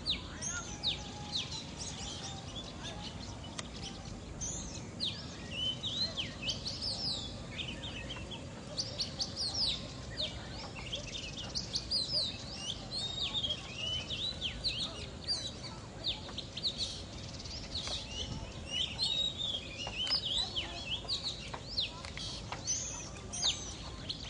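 Many small birds chirping together: short, rapid, high-pitched calls overlapping without a break, over a low, steady background noise.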